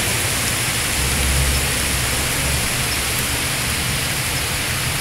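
Heavy thunderstorm rain falling steadily on trees and leaves, an even hiss, with a low rumble swelling briefly about a second in.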